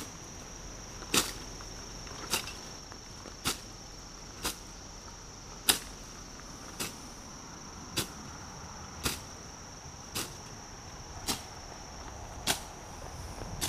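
Long-handled swing blade slashing through tall weeds, a sharp swish-and-chop about once a second, a dozen strokes in a steady rhythm.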